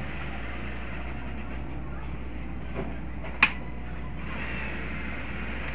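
Steady background noise with a low hum, and one sharp click about halfway through.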